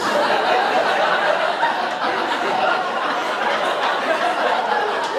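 Audience laughing together after a punchline, a sustained wave of laughter that starts at once and holds steady.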